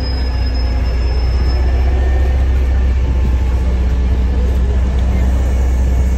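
NefAZ-5299 city bus engine idling at a stop, a steady low rumble.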